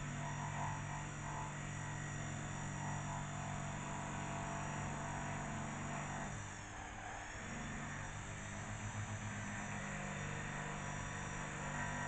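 Steady low mechanical hum over a background hiss, with a faint high whine; the hum drops out for about a second around the middle.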